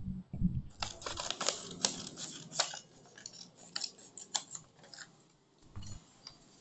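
Folded sheets of printer paper being handled, rustling and crackling in a dense run of small crinkles that thins out after about four seconds. Dull low bumps at the very start and again near the end.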